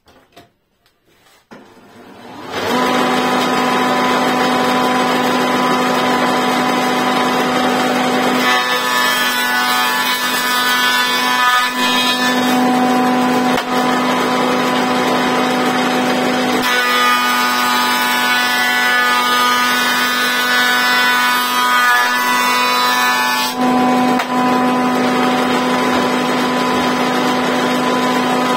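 Elu 176 combination woodworking machine switched on, its motor spinning up over about a second and then running steadily with a strong steady hum. Nothing is fed through it.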